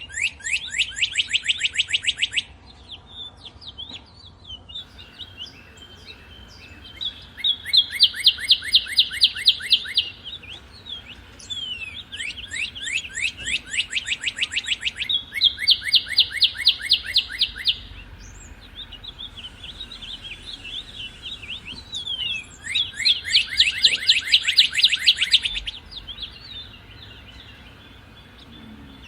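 Northern cardinal singing: about five phrases, each a fast run of repeated down-slurred whistled notes lasting two to three seconds, with fainter chirps from other birds between the phrases.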